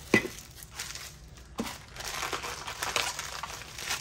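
Plastic bag crinkling and rustling as it is handled and opened to get the figure out of a Funko Soda can, with a sharp knock just after the start and another about a second and a half in.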